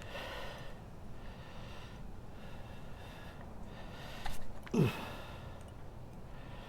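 A man breathing hard close to the microphone, a breath about every second, with the effort of working a thick rubber tire plug into its insertion tool. A short knock comes a little past the four-second mark, then a brief grunt that falls in pitch, the loudest sound.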